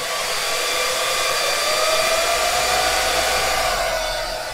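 Cooling fan on the test bench spinning up at switch-on, a loud steady rush of air with a faint whine in it, beginning to wind down near the end.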